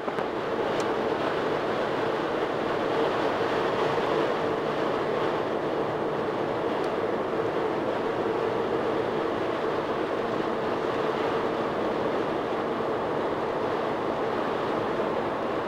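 Steady road noise heard inside a moving car: tyre roar with a steady hum underneath.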